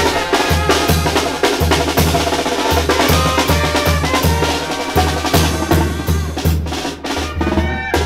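Tamborazo brass band playing: trumpets and a sousaphone over a tambora bass drum with its top cymbal, snare and cymbals, with a steady bass-drum beat.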